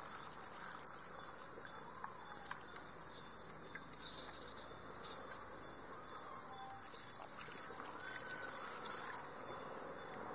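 Coconut milk poured from a steel bowl over chopped tender jackfruit in a clay pot, a soft trickle and dribble, with a little water dribbling in from a glass near the end.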